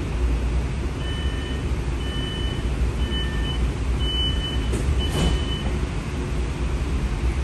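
Streetcar door-closing warning beeps: a two-tone beep repeating about once a second, five times, as the doors close before the car moves off. Beneath them is the low steady hum of the car's interior, and a short rushing noise comes near the last beep.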